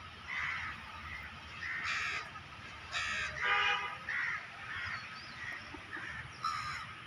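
Crows cawing: a string of short, harsh calls, about one or two a second.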